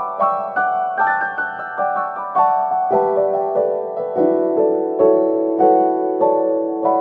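Background piano music: a gentle melody of evenly paced notes over held lower notes.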